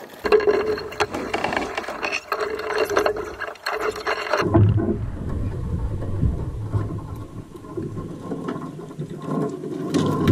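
Sailboat rigging wire and metal fittings rattling and scraping with repeated sharp clinks, as the roller-furler forestay is handled. About four and a half seconds in this gives way to a low rumble of wind on the microphone with scattered light clicks.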